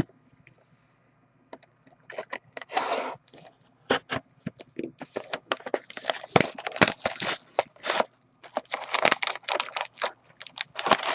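Plastic shrink wrap crackling and tearing as a sealed trading card box is unwrapped and opened by hand. It comes as a rapid, irregular run of sharp crinkles and scrapes that starts about two seconds in and grows denser from about five seconds on.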